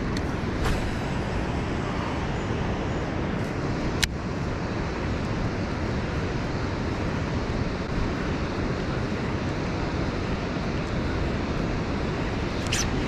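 Steady rushing roar of water pouring from a dam's outlet, unchanging throughout, with a single sharp click about four seconds in.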